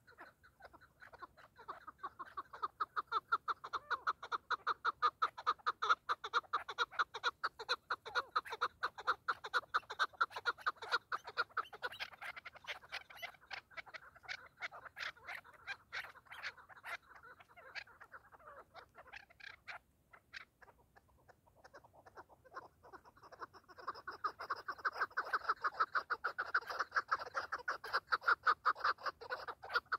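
Chukar partridges calling: a fast, unbroken run of repeated 'chuk' notes, loud at first, fading through the middle and swelling again near the end.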